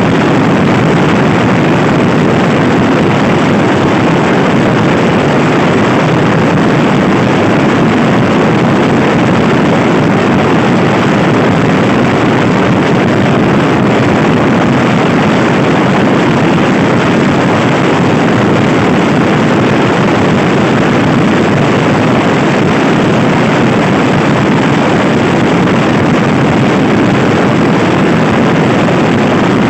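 Loud, steady wind noise buffeting the microphone of a Honda Scoopy i scooter being ridden at speed, covering most of the bike's own sound.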